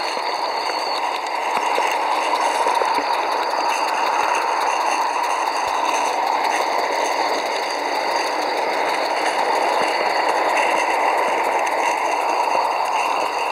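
Scratchbuilt gas-fired live-steam geared locomotive (0-4-2, T-boiler, 45 mm gauge) running along the track: a steady hissing whir with faint ticks throughout.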